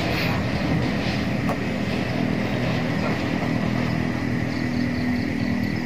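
An engine running steadily at idle, an even low drone that neither rises nor falls.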